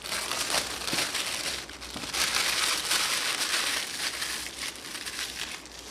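Plastic packaging crinkling and tearing as an Android TV box is unwrapped, with a continuous rustle of crackles that grows louder about two seconds in and eases off near the end.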